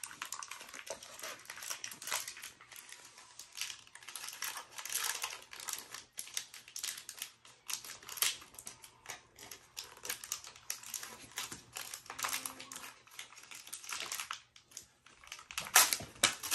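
Crinkling and rustling of a small plastic L.O.L. Surprise doll wrapper being worked open by hand: a steady run of quick, irregular crackles, loudest just before the end.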